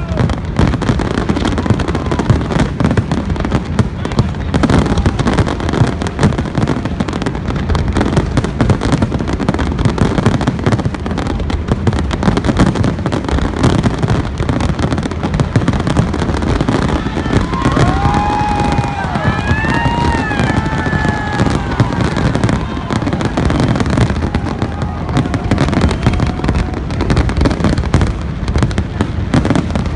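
Fireworks display going off as a dense, continuous barrage of bangs and crackles, with a few short whistling glides about two-thirds of the way through.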